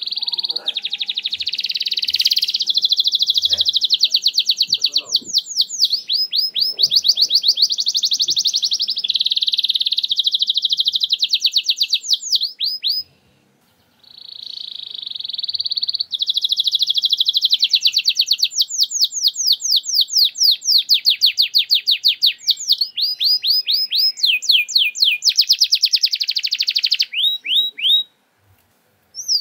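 Domestic canary singing loudly in long, rolling phrases of trills and fast runs of repeated sweeping notes. It breaks off briefly about 13 seconds in, then sings another long phrase that stops near the end. This is the bursting 'nembak' song that keepers play to prompt a quiet canary to sing.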